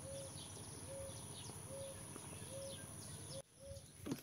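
Faint outdoor background of birds calling: a short low note repeated about once a second, with fainter high chirps. The sound drops out abruptly shortly before the end.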